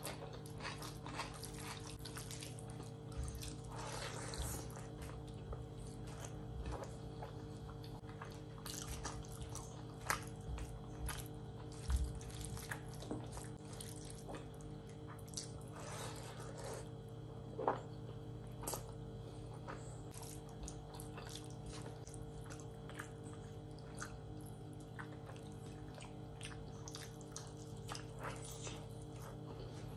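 Close-up eating sounds of rice and chicken liver curry eaten by hand: sticky, wet clicks and squelches from fingers mixing gravy-soaked rice on a steel plate, and mouth sounds of chewing. These run over a steady low hum.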